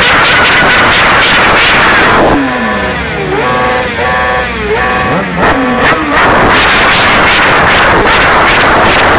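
Suzuki GSX sportbike engine revved flat out against its rev limiter, very loud. A couple of seconds in the revs drop away with a falling whine and it is blipped a few times. About six seconds in it goes back up onto the limiter.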